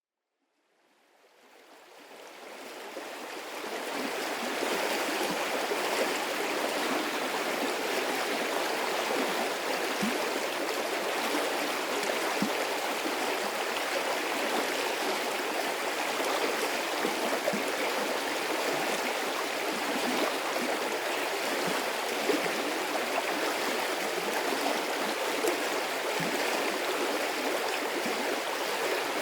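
Medium-sized water stream flowing steadily with a continuous rushing babble. It fades in from silence over the first four seconds.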